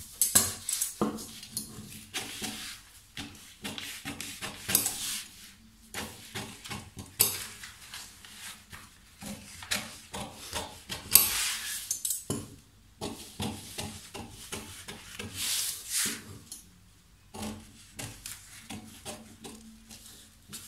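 Large tailor's shears cutting through paper pattern pieces: an irregular run of sharp snips, mixed with the rustle of the stiff paper as it is moved and cut.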